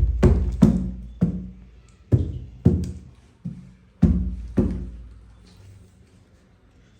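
A baby beating a drum by hand: about nine irregular strikes, each with a short low boom, stopping about halfway through.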